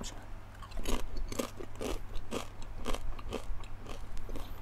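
Close-up crunching of a crisp nacho cheese chip being bitten and chewed, about two crunches a second starting about a second in.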